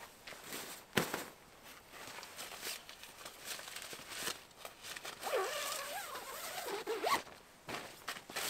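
A zipper being pulled in a series of short quick strokes, the sharpest about a second in, with a longer, wavering pull from about five to seven seconds in.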